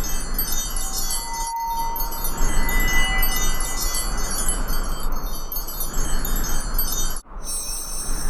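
Dense, rapid tinkling of chimes, like a wind-chime or sparkle sound effect, over a steady hiss. It breaks off sharply for an instant about a second and a half in, and again near the end.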